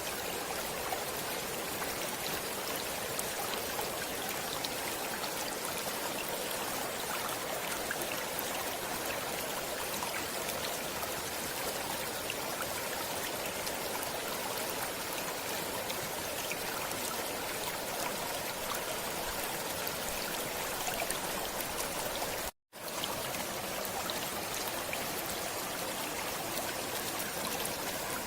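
Flowing stream water running steadily, with fine splashing ticks through it. About three quarters of the way through it drops out to silence for a split second, then resumes.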